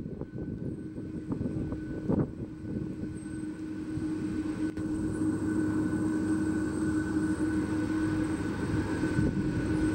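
Airbus Beluga (A300-600ST) taxiing, its two GE CF6-80C2 turbofan engines running with a steady whine over a low rumble that grows gradually louder. A few soft knocks come in the first two seconds.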